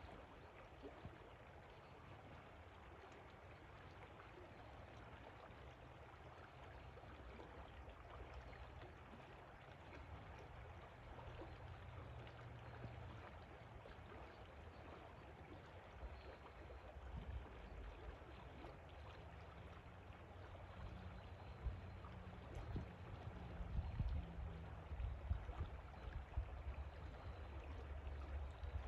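River water flowing in a steady, faint rush, with an uneven low rumble underneath that grows stronger in the second half.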